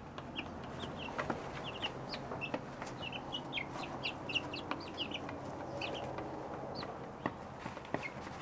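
Young rooster chicks peeping: many short, high cheeps in quick succession, thinning out after about six seconds, with scattered sharp taps.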